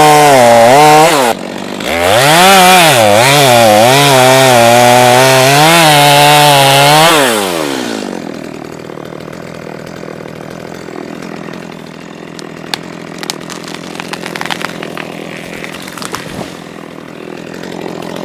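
Chainsaw running at high revs, its pitch dipping and recovering again and again as it bogs under load in the wood, then winding down about seven seconds in. A quieter stretch of rustling with scattered sharp cracks and snaps follows.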